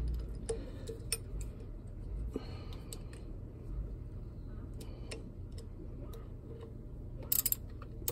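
Wrench turning the pulley nut on a marine engine's seawater pump: scattered light metal ticks, then a short burst of ratcheting near the end. A steady low hum runs underneath.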